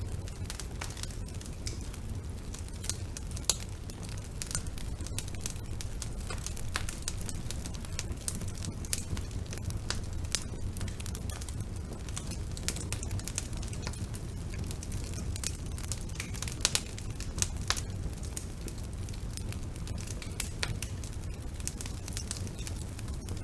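Wood fire burning in a fireplace: a steady low rumble with irregular crackles and sharp pops, a few louder pops among them.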